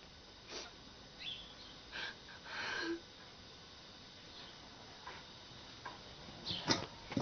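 A woman crying quietly: a few soft sniffles and breaths, the longest about three seconds in. A louder brief knock or rustle comes near the end.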